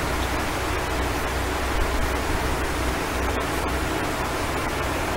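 Steady hiss of background noise with a low hum underneath, from the narrator's recording microphone picking up the room between words.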